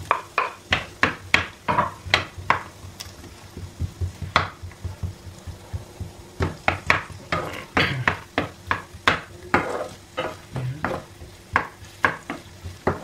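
Wooden spoon stirring onion wedges and garlic in hot oil in a saucepan, knocking and scraping against the pan in quick repeated strokes, with a light sizzle under it. The onion pieces are tipped into the pan from a wooden cutting board at the start, and the strokes thin out for a few seconds in the middle.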